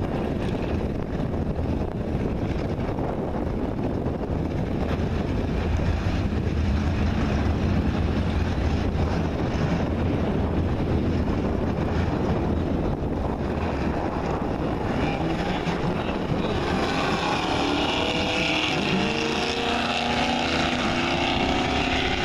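A Plymouth Duster's 340 small-block V8 and a diesel Dodge pickup rumbling low and steady at the drag strip's starting line. About three-quarters of the way in they launch, and the engine note climbs in pitch again and again as they accelerate away.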